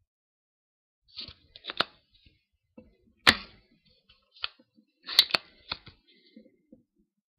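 Spring-loaded solder sucker (desoldering pump) snapping as its trigger is pressed to pull molten solder off a circuit-board contact point, with further clicks as it is handled. About seven sharp clicks in all, the loudest about three seconds in.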